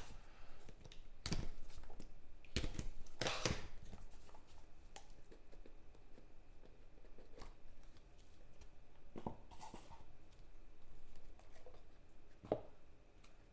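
Trading card packaging being opened and handled: a few short tearing and rustling sounds, loudest in the first few seconds, then softer handling noises now and then.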